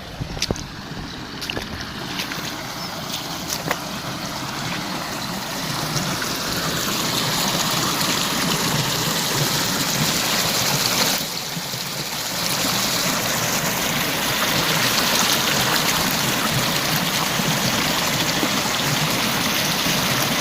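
Waterfall rushing, a dense steady roar of falling water that grows louder over the first several seconds and then holds steady, with a brief dip about eleven seconds in. A few light clicks or taps sound in the first few seconds.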